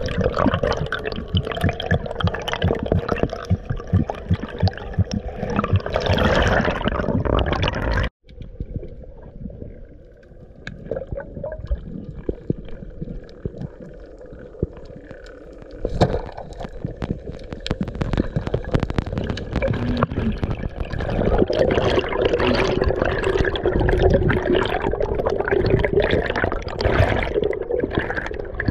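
Muffled underwater rush and gurgling of water around a diver's action camera, with many small clicks and crackles. The sound cuts out abruptly about eight seconds in, returns quieter, and grows louder again about halfway through.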